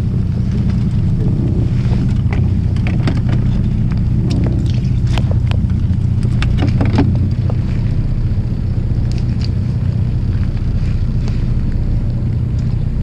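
A fishing boat's engine running steadily, with scattered clicks and knocks of fishing gear being handled over the deck during the first half.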